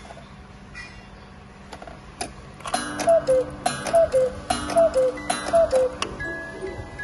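Eight-day Black Forest cuckoo clock striking the hour: four two-note falling cuckoo calls from its bellows pipes, each with a click of the mechanism, after a few quiet ticks of the movement. Four calls mark four o'clock.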